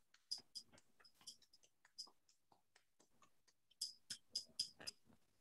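Faint, irregular small clicks over near silence: a few in the first second, then a quick run of about six near the end.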